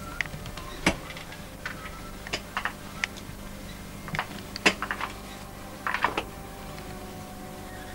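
A scattered series of sharp clicks and taps, about a dozen at irregular intervals with a short cluster about six seconds in, over a steady low hum.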